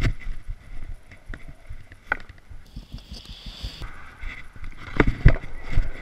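Longboard wheels rolling over rough asphalt, a low rumble broken by irregular knocks and rattles, with a brief hiss about halfway through and a couple of louder thumps near the end.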